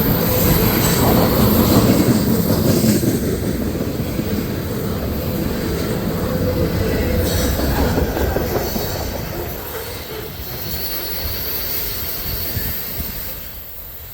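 Loaded ethanol tank cars of a long freight train rolling past, their wheels running on the rails, with a faint steady wheel squeal near the start. The sound fades away over the last several seconds as the end of the train goes by.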